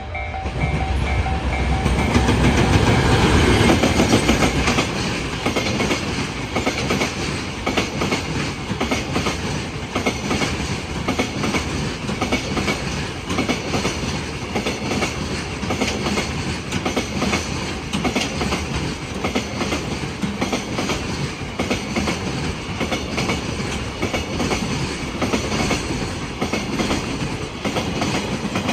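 A freight train passes at speed. The loudest moment, the locomotive going by, comes about two to five seconds in, followed by a steady clatter of wagon wheels over the rail joints. At the start a level crossing warning bell rings in even strokes, about two a second, and is soon drowned out.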